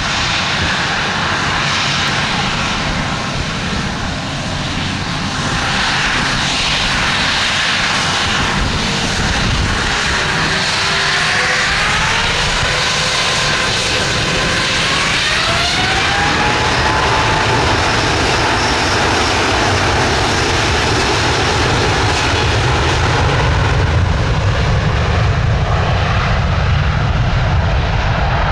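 Airbus A350's Rolls-Royce Trent XWB turbofans spooling up for take-off: a whine rises in pitch about midway, then a deeper rumble swells as the jet begins its take-off roll.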